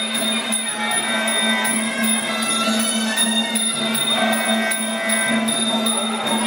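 Traditional Muay Thai ring music (sarama): a reedy pi java melody wandering in pitch over a steady drone, with small ching cymbals ringing in time.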